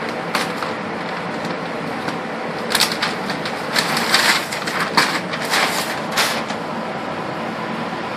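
Masking paper and tape being pulled off a freshly painted truck panel by hand, crinkling and rustling in a cluster of short bursts from about three to six seconds in, over a steady background hiss.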